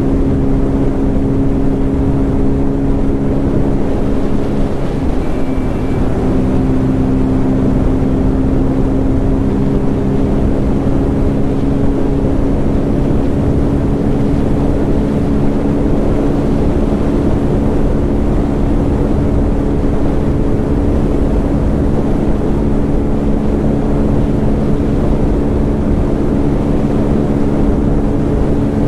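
Bajaj Pulsar N250's single-cylinder engine running at a steady highway cruise, its even drone mixed with wind and road noise at the rider's helmet. The engine note briefly changes about five seconds in, then holds steady again.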